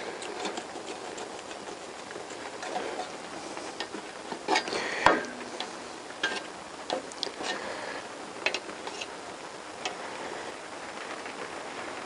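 A pump oil can being worked by hand to squirt engine oil onto the main bearing shells in an aluminium crankcase: scattered light clicks and taps, with a louder cluster about five seconds in.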